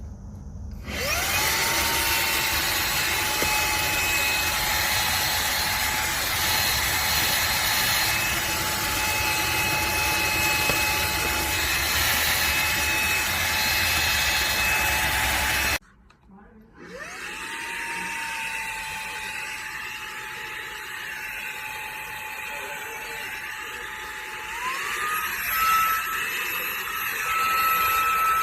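Xiaomi Mijia handheld cordless vacuum cleaner's motor whining as it is switched on and spins up, cuts off suddenly, then is switched on again and spins up once more, running quieter until its pitch steps up near the end.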